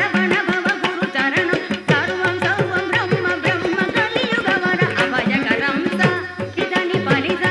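Carnatic-style Indian film song music: rapid hand-drum strokes under a wavering, ornamented melody line.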